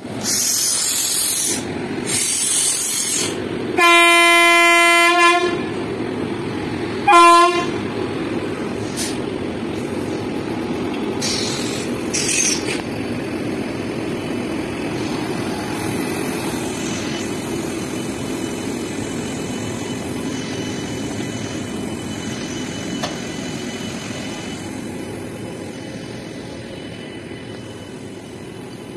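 Indian Railways electric passenger locomotive passing along the platform: two bursts of hiss, then a long horn blast about four seconds in and a short one about three seconds later, followed by the steady rumble of the coaches rolling past, slowly fading.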